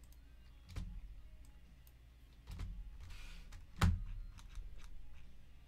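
Computer mouse and keyboard being worked: a few separate sharp clicks and knocks, the loudest about four seconds in, with a brief hiss just before it and fainter ticks after.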